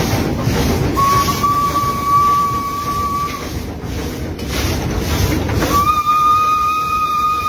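Two long, steady single-note train whistle blasts, the first about a second in and lasting some two seconds, the second starting near the end. Underneath is the constant rumble and clatter of a steam locomotive's cab on the move, with a fireman shovelling coal into the firebox.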